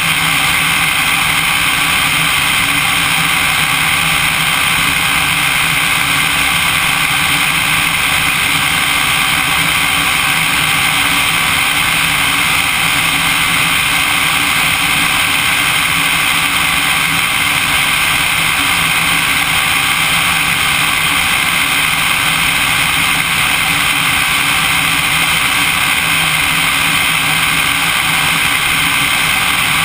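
Single-engine light aircraft's propeller engine running steadily in flight, heard from outside the airframe with air rushing past. Its pitch and loudness stay constant throughout.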